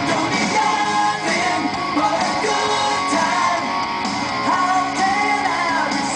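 A recorded rock song playing, with a singing voice over guitar and a full band.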